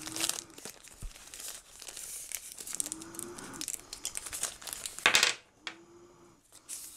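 Clear plastic packaging crinkling and rustling as a laptop stylus pen is unwrapped, with a louder, sudden rustle about five seconds in.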